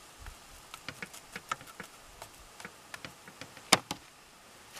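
Butter crackling in a frying pan under a quesadilla, a steady scatter of small pops. About three and a half seconds in, two sharp clacks as a plastic spatula is set down on a plastic plate.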